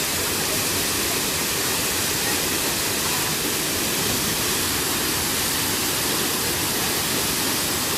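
Rocky river waterfall pouring over rocks: a steady, unbroken rush of falling water.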